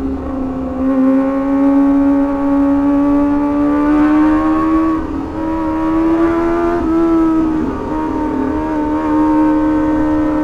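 Kawasaki ZX-25R's 250 cc inline-four engine running at steady high revs under way, a high engine note whose pitch creeps slowly upward, with a brief dip about two-thirds of the way through.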